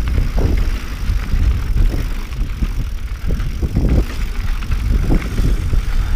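Mountain bike rolling over rough, rocky trail: tyres on rock with frequent short knocks and rattles from the bike over bumps, over a steady low wind rumble on the microphone.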